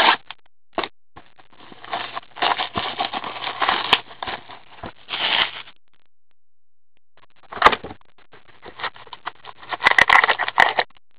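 Plastic shrink-wrap on a sealed box of trading cards crinkling as it is stripped off, then cardboard and foil packs rustling as the box is opened and packs are handled. There are two stretches of crinkling with a short pause between, and a sharp click just after the pause.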